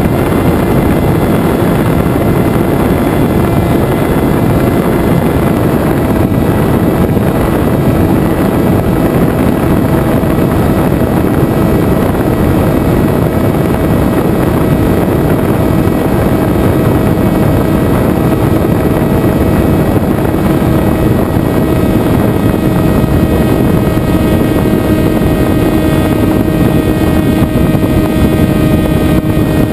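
Venturi FPV flying wing's electric motor and propeller running at a steady throttle in flight, heard from the onboard camera as a steady droning buzz over a heavy rush of air.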